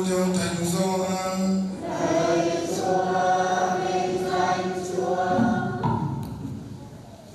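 Church choir singing the acclamation before the Gospel in long, held notes in harmony; the last phrase dies away about six seconds in.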